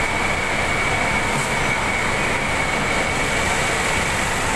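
Steady drone of belt conveyors and packing-hall machinery running, carrying 50 kg sugar bags, with a steady high whine over it.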